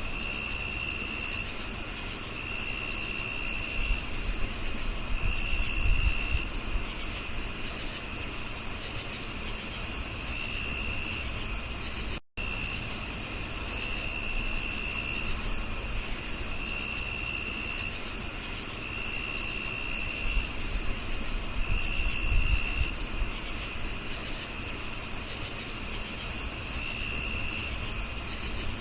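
Crickets chirping in a chorus: a steady high-pitched trill, a regular pulsed chirp about three times a second, and lower trills of a second or so that come and go. The sound cuts out for an instant about twelve seconds in.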